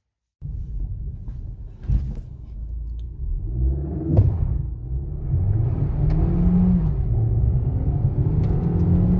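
Suzuki Swift Sport's 1.4-litre turbocharged four-cylinder accelerating hard, heard from inside the cabin. The engine note climbs, drops at a gear change about four seconds in, climbs again, and shifts once more near the end.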